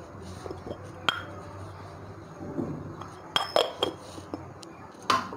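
Sharp metallic clicks and clinks, some ringing briefly, from a small steel tempering pan of mustard and cumin seeds frying in hot oil, with its resting spoon. A quick cluster of three comes a little past the middle and a louder one near the end.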